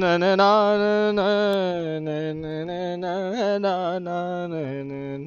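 A man singing alone, holding long wordless notes with small wavering ornaments and occasional slides in pitch, with no instrument behind him.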